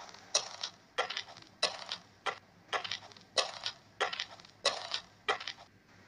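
A small broom sweeping in short scratchy strokes, about nine of them, one every two-thirds of a second, stopping shortly before the end.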